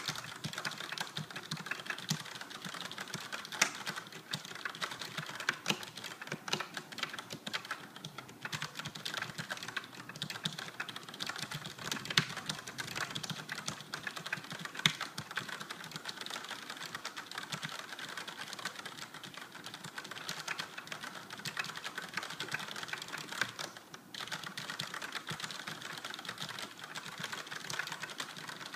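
Fast continuous typing on a Logitech G710+ mechanical keyboard with Cherry MX Brown switches, a dense patter of key clicks with occasional louder strokes and a brief pause near the end.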